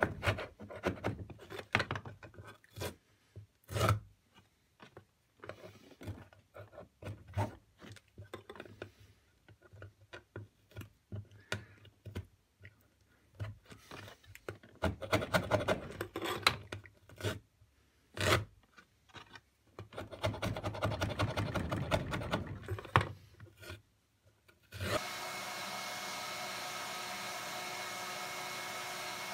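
Metal hand scraper scraping old glue and fabric residue off the wooden slats of a tambour door, in irregular strokes with sharp knocks. About 25 seconds in, a vacuum cleaner with an upholstery brush attachment starts and runs steadily.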